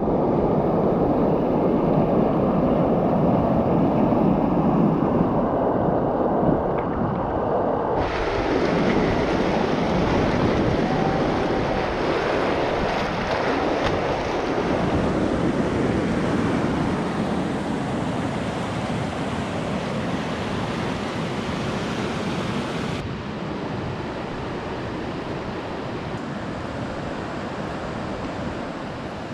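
River rapids: whitewater rushing loudly and steadily over rocks. The sound changes abruptly twice, about 8 and 23 seconds in, as the shot changes.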